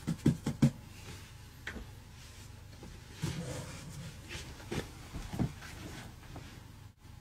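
Soft knocks and thumps from handling in a small room: a quick run of four or five at the start, then a few scattered ones later.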